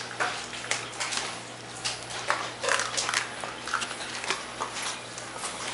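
A large dog chewing on a toy, making irregular clicks and crunches, with a few short squeaky blips about halfway through.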